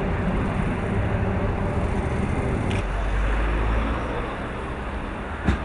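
Street traffic, with a motor vehicle's engine running close by; its low hum changes about halfway through, and a short sharp knock comes near the end.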